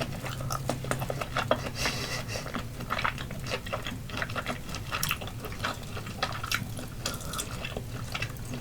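Close-miked chewing with many short wet mouth clicks and smacks, several a second, over a faint steady low hum.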